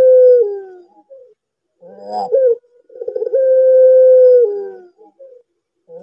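Ringneck dove (puter pelung) cooing. The long coo already under way falls away at the start, a short rough note comes about two seconds in, and a second long, drawn-out coo on one pitch follows, held for about a second and dropping at its end.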